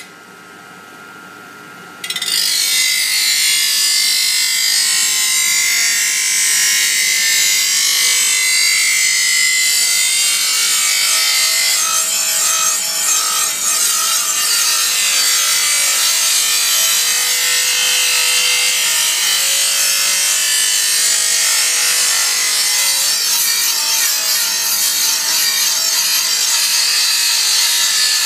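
Steel sword blade held against an abrasive wheel spun by an electric motor: a harsh, steady grinding hiss that jumps much louder about two seconds in and then holds.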